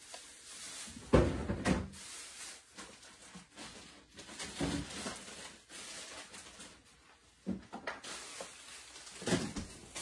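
Kitchen rummaging: several separate knocks and thumps, like cupboard doors closing and things being moved about, with two close together about a second in being the loudest.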